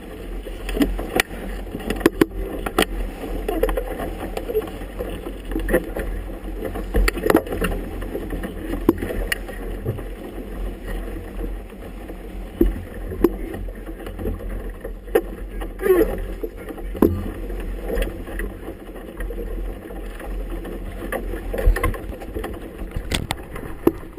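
Choppy water slapping and splashing against a small boat's hull in irregular sharp hits, over a steady wash of wind and water.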